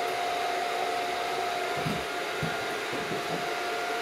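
Electric fan running with a steady whoosh and a faint steady hum. A few soft low knocks come about halfway through.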